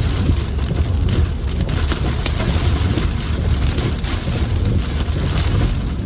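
Heavy rain mixed with pea-sized hail drumming on a car's roof and windows, heard from inside the cabin as a dense patter of sharp hits over a steady low rumble.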